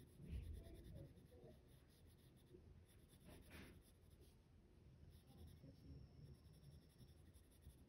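Faint scratching of a Prismacolor coloured pencil shading on paper.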